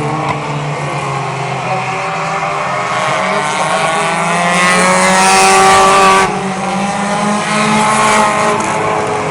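Several mini-class race cars running laps on a speedway oval, their engine notes rising and falling as they pass. The loudest pass comes about five to six seconds in and drops off sharply just after six seconds.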